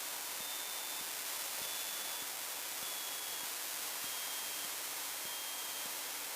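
Steady hiss of electrical static, with a faint high tone cutting in and out every second or so. No engine drone stands out.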